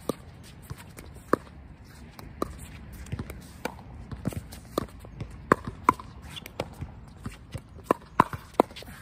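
Pickleball paddles striking a hard plastic ball in a fast volley exchange at the net: a rapid, uneven series of sharp pops, coming faster in the second half.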